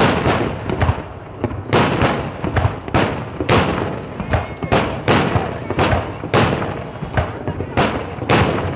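Fireworks bursting in a dense finale barrage: sharp bangs in quick succession, about two a second, with continuous crackle and rumble between them.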